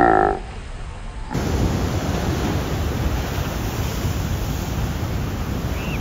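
A brief pitched sound at the very start, then, about a second in, a steady rushing noise of heavy ocean surf and wind on the microphone, strongest in the low rumble; a tiny faint chirp near the end.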